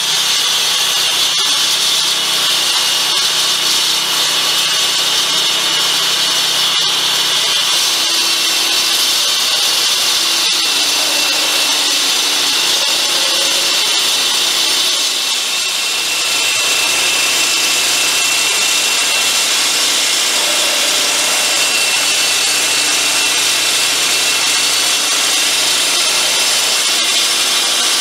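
Walk-behind floor saw (joint cutter) with a large diamond blade cutting a groove into asphalt: a steady, loud grinding hiss with a high blade whine over the machine's engine, dipping briefly about halfway through.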